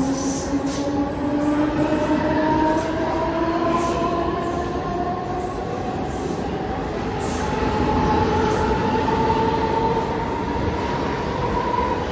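Mumbai suburban electric local train pulling out of the platform and picking up speed. Its electric whine rises steadily in pitch over the rumble of wheels on rail.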